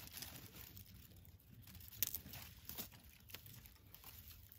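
An African elephant chewing close by: faint crunching and tearing with a few sharp clicks, the loudest about two seconds in.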